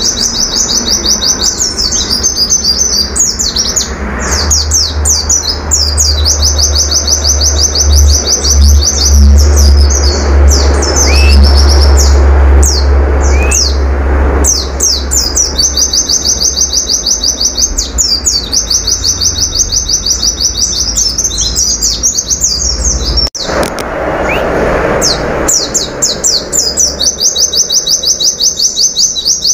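White-eye (pleci) singing a long, fast song of rapidly repeated high notes. The song comes in runs several seconds long, broken by single chirps, over a low rumble, with a sharp click about two-thirds of the way through.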